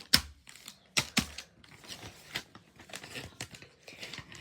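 Individually wrapped cough drops handled, their wrappers crinkling, with a few sharp knocks near the start and about a second in, then softer rustling.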